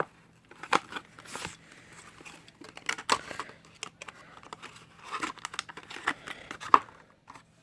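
Packaging of a diecast toy car being opened by hand: rustling and tearing with scattered sharp clicks and taps, the sharpest near the end.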